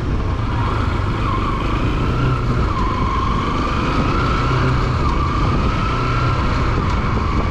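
Bajaj Pulsar NS200 single-cylinder engine running at riding speed, heard from the saddle with wind and road noise. There is a steady low hum and a whine that wavers a little in pitch.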